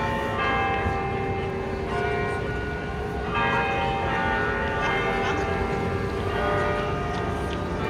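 Bell-like chiming: clusters of ringing tones struck afresh about every second and a half, each left to ring on.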